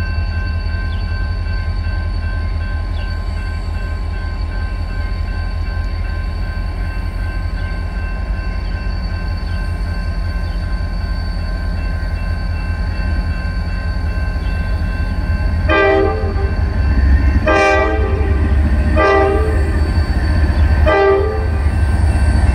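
Diesel locomotive engine running steadily as the locomotive rolls slowly. Near the end its air horn sounds four short blasts, about one every second and a half.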